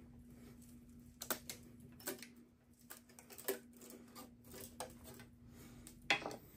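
Scattered sharp knocks and clinks, about five of them, as a cylinder head is worked loose from its locating pins on a 283 small-block Chevy engine. A faint steady hum runs underneath.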